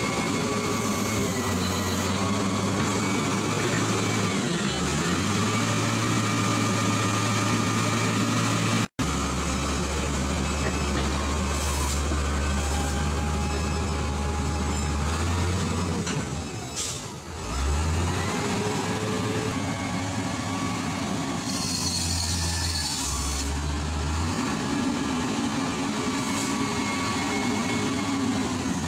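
Hidromek motor grader's diesel engine running steadily as the machine grades a muddy dirt road. The engine note dips briefly about two-thirds of the way through, then recovers. The sound breaks off for an instant about a third of the way in.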